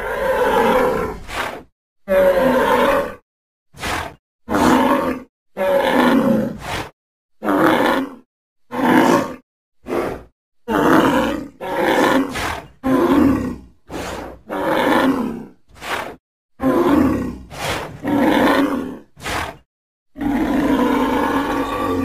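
Sound-effect roars made to stand for an extinct woolly rhinoceros: a rapid string of separate deep, pitched bellows and short grunts, most under a second long with brief silences between. A longer bellow of about two seconds comes near the end.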